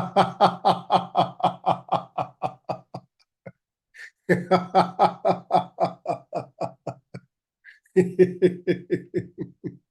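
Deliberate rhythmic 'ha-ha-ha' laughter let out after a held breath in a laughter yoga breathing exercise. It comes in three bouts of quick pulses, about four or five a second, with short pauses between.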